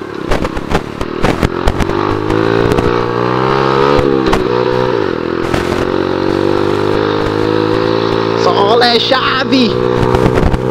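A 50cc scooter engine running at high revs. The pitch wavers up and down about two to five seconds in, then holds flat and high, with knocks and rattles from the bumpy dirt road.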